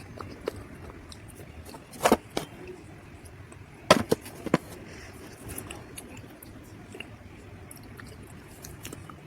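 Dried mud being bitten and crunched: two sharp crunches about two seconds in and three more around four seconds in, with faint chewing clicks in between.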